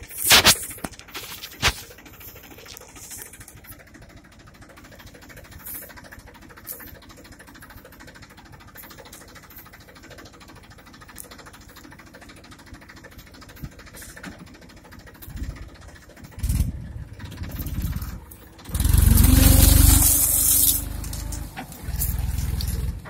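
Tractor engine running low, with two sharp knocks in the first two seconds; in the last several seconds it revs up loudly in surges, the pitch rising slightly at the loudest point, as the stuck tractor tries to pull out of the sand.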